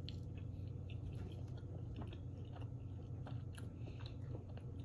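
A person biting into a shrimp quesadilla and chewing it, with small irregular clicks of chewing.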